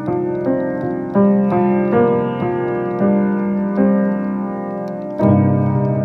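Slow, improvised solo piano music: single notes and chords struck one after another and left to ring, with a louder low chord about five seconds in.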